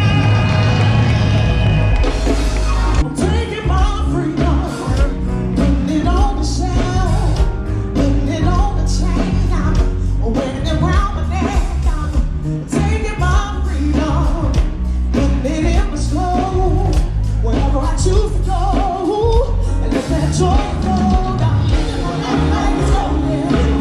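A band playing with a lead singer: heavy bass and regular drum hits under a wavering vocal line.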